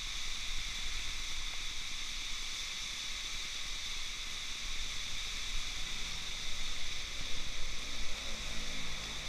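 Typhoon rain falling steadily on the street and pavement as an even hiss, with a low rumble underneath that swells a few times near the end.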